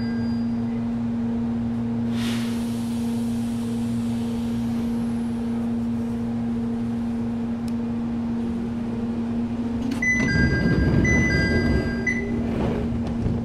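Jomo Electric Railway 700 series electric train (ex-Keio 3000 series, resistance-controlled) standing at a station, heard from inside the car: a steady hum of its on-board equipment and a short hiss of air about two seconds in. About ten seconds in it pulls away with a louder low rumble, while high electronic chime tones sound over it.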